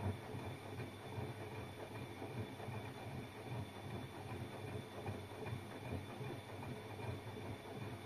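Bosch Maxx 7 VarioPerfect front-loading washing machine running a drum-cleaning cycle: the empty drum turning with water and suds sloshing inside, over a steady low motor hum with a faint steady high whine.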